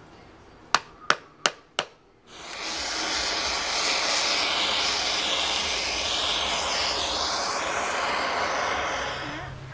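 Handheld gas torch on a yellow fuel cylinder, aimed at carved wood: four sharp igniter clicks about a second in, then a steady hiss of flame that lasts about seven seconds and stops just before the end.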